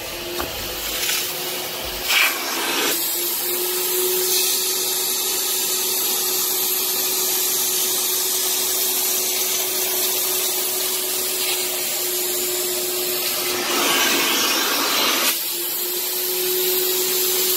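Kärcher Puzzi 10/1 spray-extraction vacuum running steadily: a motor hum under the hiss of suction as its clear upholstery nozzle pulls dirty water and grime out of a fabric car seat. The hiss grows louder for a moment a little before the end.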